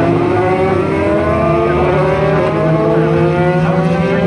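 Super GT race cars' engines running together as the pack goes by on the formation lap, with many overlapping engine notes, each climbing steadily in pitch as the cars accelerate.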